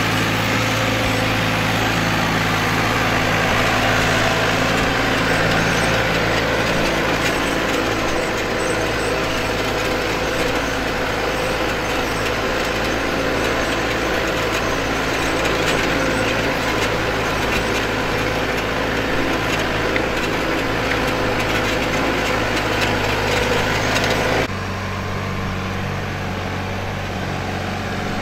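Case IH JX70 tractor's diesel engine running steadily under load as it pulls a four-furrow plough through the soil, with a dense rasping noise over the engine note. About 24 seconds in the sound drops abruptly to a quieter, steadier engine note.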